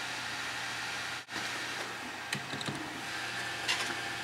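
Steady fan noise from a desktop computer booting up, with a few faint keyboard key clicks in the second half. The sound drops out for an instant a little over a second in.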